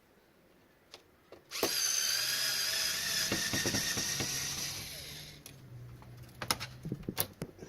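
Cordless drill/driver running for about four seconds, a steady whine that fades out at the end, as screws are taken out of electronics being stripped for scrap. A few sharp clicks follow near the end.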